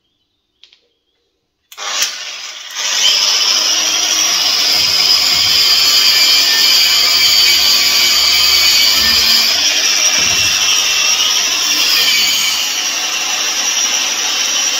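Angle grinder fitted with a stainless-steel wire brush starting up about two seconds in, then running loud and steady as it brushes weld scale and spatter off a welded steel frame, its whine dipping slightly under load.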